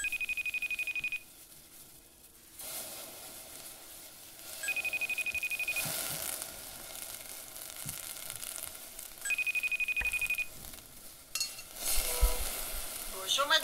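Telephone ringing: three rings of a fast high trill, each about a second long and some four seconds apart, over a steady hiss. A few knocks follow near the end.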